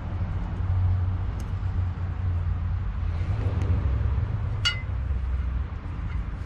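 A low steady rumble, with a few light clicks and one ringing metallic clink about two-thirds of the way through, as metal parts are handled.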